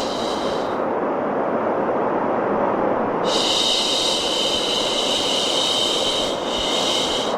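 Long female "shhh" shushes over a steady white-noise hiss: one shush ends about a second in, another starts about three seconds in and runs for about three seconds, and a short one follows after a brief break near the end.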